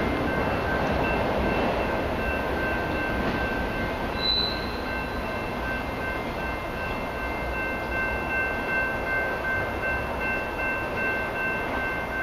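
CN freight train of mixed cars and autoracks rolling by with a steady rumble that eases slightly, under a high pulsing ring that repeats throughout. A short high chirp sounds about four seconds in.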